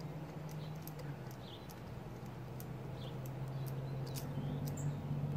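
Light, irregular clicks of hands handling a wire and screw on the metal underside of a Marchant calculator, over a steady low hum.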